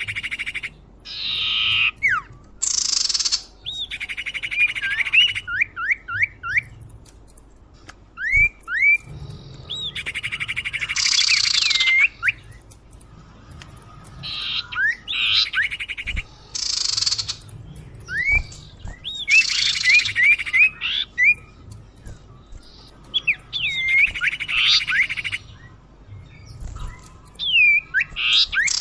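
Lure recording of a common iora (cipoh) calling. It repeats bouts of harsh rasping buzzes mixed with quick slurred whistled notes, a new bout every few seconds.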